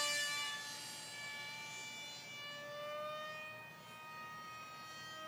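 Battery-electric RC model airplane's motor and propeller whining in flight, a steady pitched whine that swells and eases a little in level and pitch as the plane flies around.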